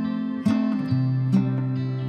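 Background music on acoustic guitar, with sustained plucked notes and a new chord struck roughly once a second.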